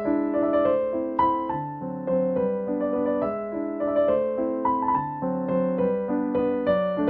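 Background music: a gentle piano melody over chords, with new notes every fraction of a second.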